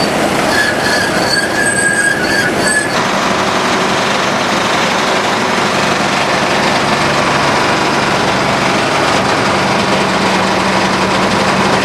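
Haybuster IG-11 tub grinder, powered by a 300 hp Caterpillar diesel, running with a loud, steady mechanical din. A high metal-on-metal squeal rides on top for about the first three seconds, then cuts off suddenly.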